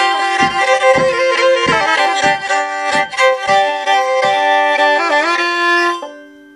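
Solo violin playing a fast, ornamented kayda folk dance tune over low thumps that keep the beat about every two-thirds of a second. About six seconds in the tune ends on a held double-stop that fades away.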